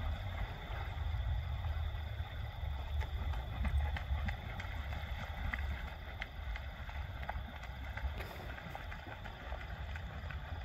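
Steady low rumble of wind buffeting the microphone, with a few faint scattered clicks.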